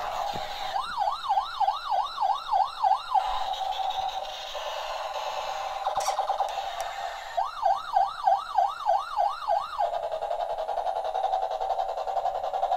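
A battery-operated toy police helicopter's electronic siren: two runs of about eight quick rising-and-falling yelps, with a steady electronic tone between them.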